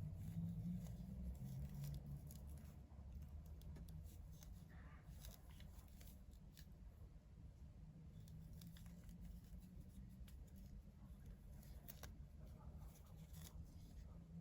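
Faint handling noises: scattered light clicks and short rustles over a low, steady hum, the kind made by turning a small part over in the hands.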